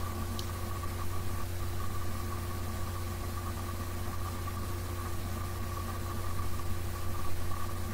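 Small portable generator's engine running steadily, a constant low hum with a held tone over it. A brief high tick about half a second in.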